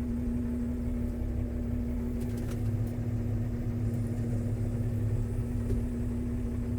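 New Holland TS135A tractor's diesel engine running steadily, a low rumble with a steady hum over it. The rumble swells slightly for a few seconds in the middle, with a few faint clicks.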